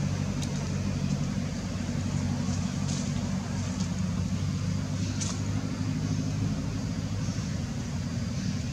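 Steady low hum of distant motor traffic, with a few faint short high chirps above it about three and five seconds in.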